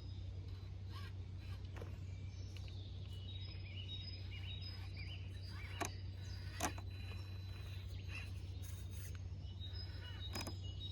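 Woodland birds chirping in short high notes over a steady low hum, with two sharp clicks a little past the middle.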